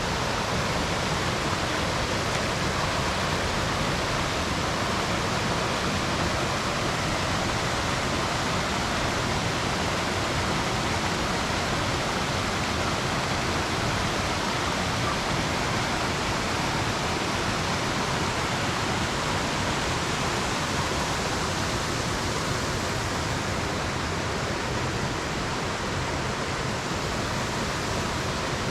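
Mountain stream rushing steadily through a rocky gorge, an even unbroken rush of water.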